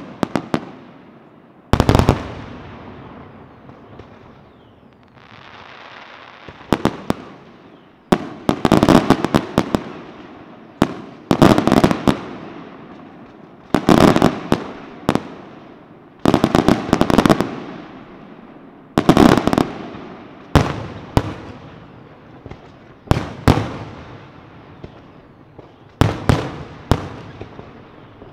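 Aerial fireworks display: shells bursting in clusters of sharp bangs every two or three seconds, each cluster trailing off in echo. There is a stretch of steady hiss between about five and eight seconds in.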